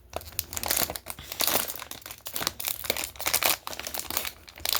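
Crinkling and tearing of a blind-bag packet's wrapper as it is ripped open by hand, in irregular crackly bursts.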